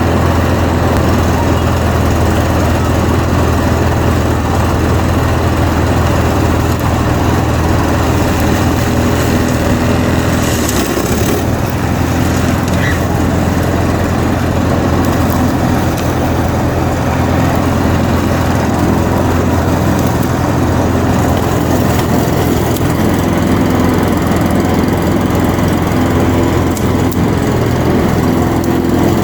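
Petrol lawnmower engine running steadily on a test run after its carburettor has been cleaned. About eleven seconds in, the engine note dips briefly, with a short burst of hiss, then settles back.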